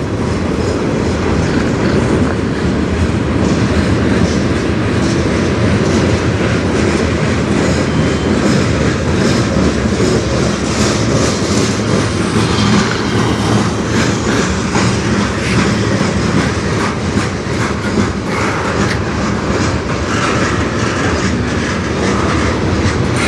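Long CN manifest freight train rolling past at slow speed: a steady rumble of freight cars with their steel wheels clicking over the rail joints.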